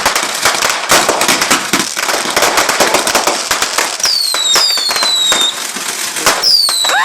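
Fireworks firing a rapid, dense run of cracks from a 4,000-shot barrage. Several falling whistles join in about four seconds in and again near the end.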